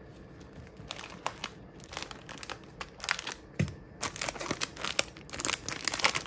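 Thin clear plastic packaging crinkling as it is handled: scattered crackles that grow denser and louder in the last second or so.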